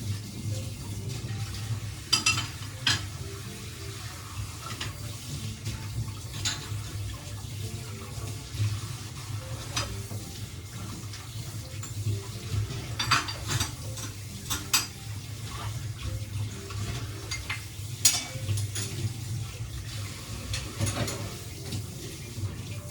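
Dishes and utensils clinking now and then, a few sharp clinks standing out, over a steady low hum.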